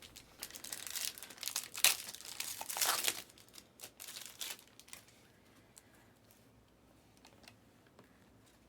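Plastic wrapping on a pack of trading cards being torn open and crinkled for about five seconds, then a few faint clicks as the cards are handled.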